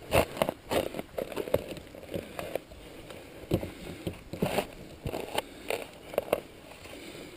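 Hands scraping and pulling clumps of soil, roots and sticks out from around a car wheel stuck in mud, in irregular crunches and rustles.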